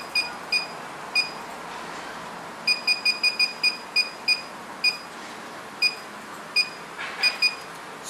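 Keypad beeps from an alarm control panel: about fifteen short, identical electronic beeps, one for each key press as its setup menus are stepped through. They come at irregular intervals, with a quick run of several around three seconds in.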